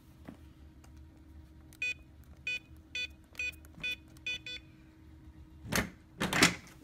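Electronic keypad beeping as a code is keyed in: about seven short, identical beeps at uneven intervals of roughly half a second. Two brief noisy handling sounds follow near the end.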